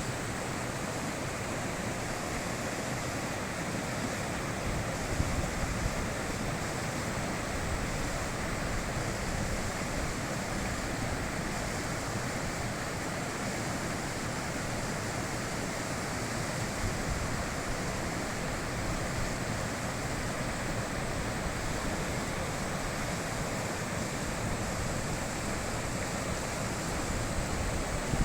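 Mountain river rushing steadily, a continuous even roar of flowing water.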